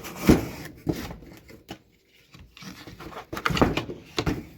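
Product box being opened and unpacked by hand: rustling, rubbing and scraping with a few knocks. The loudest handling comes just after the start and again about three and a half seconds in.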